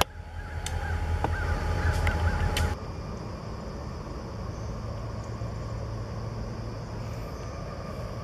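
CSX diesel freight locomotives approaching, their engines making a loud, steady low drone with a few sharp clicks and some wavering higher sounds. About two and a half seconds in it cuts off suddenly to a quieter, even rumble with a faint steady hum.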